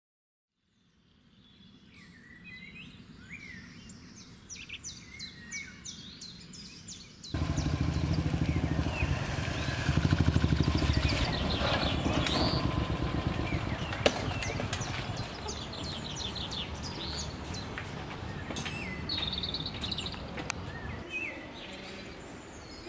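Birds chirping, and from about seven seconds in a motorcycle engine running with a low, fast, even pulse, which drops away about two seconds before the end.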